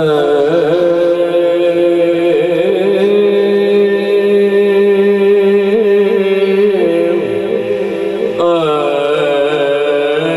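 A man's voice chanting in long, drawn-out held notes through a microphone, the pitch wavering slightly on each note, with a fresh rising phrase about eight and a half seconds in; durood, the chanted salutation on the Prophet, as called for just before.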